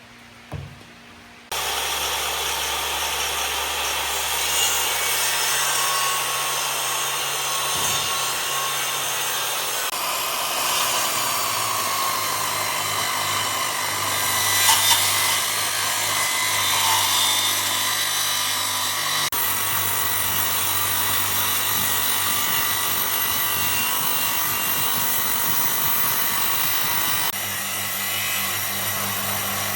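A power tool working wood starts abruptly about a second and a half in and runs steadily, a loud rasping noise over a motor hum that shifts pitch a few times.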